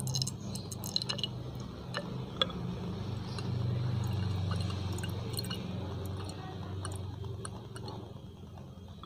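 Essence oil dripping into a glass measuring cylinder as a dose of about 4 ml is measured out: small scattered drips and light clicks against glass, over a low steady hum.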